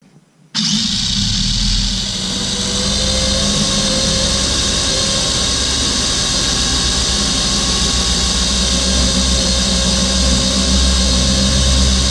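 RC car's motor and rear wheels running flat out on a homemade roller dyno, driving the roller in a max-speed test. It starts suddenly about half a second in, then holds as a loud, steady whine.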